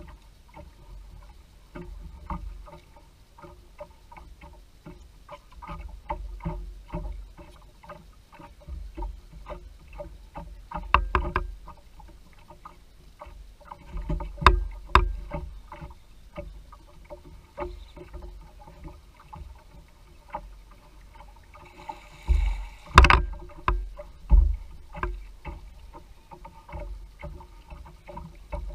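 Small boat on the water, with many short knocks and clunks against the hull. There are louder thumps around the middle and again about two-thirds of the way through.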